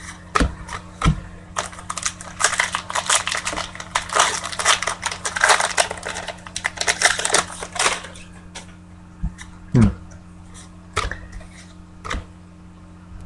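A pack of Opening Day baseball cards being torn open and handled: its wrapper crinkles in a dense run of sharp crackles, then the cards give a few scattered clicks as they are squared up. A faint steady low hum lies underneath.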